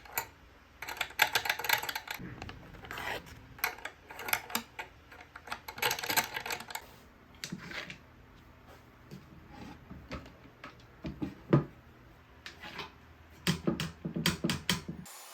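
Wooden lock mechanism being worked by hand: quick clusters of sharp wooden clicks and clacks, with a few heavier knocks.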